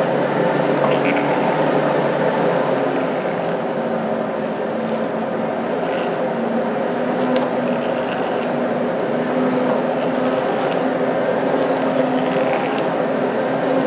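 Hand-cranked forge blower turning, giving a steady rush of air with a hum that wavers slightly in pitch, and light metallic clatters every couple of seconds.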